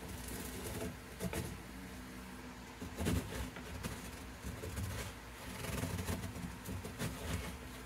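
Wooden knocks and scrapes of a small wooden clamp being handled and set down on a cedar guitar top on a workbench, irregular, with the loudest knock about three seconds in. A steady low hum runs underneath.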